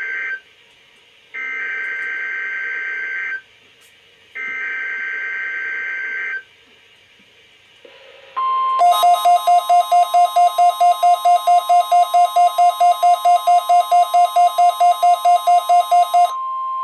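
Midland WR-120 weather radio receiving a NOAA Weather Radio weekly test. First come the SAME alert header data bursts: the end of one, then two more screechy two-tone bursts about a second apart. After a short gap the steady NOAA warning tone starts, and the radio's own alert beeps over it, about three to four beeps a second, for about seven seconds.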